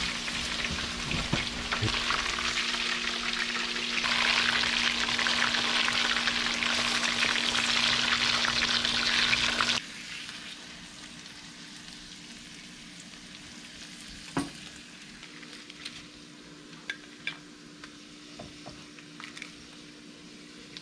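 Onions and oyster mushrooms sautéing in butter in a stainless steel skillet, sizzling loudly while being stirred with a silicone spatula. The sizzle grows louder about four seconds in, then cuts off suddenly about ten seconds in, leaving a faint steady hum and a few light clicks.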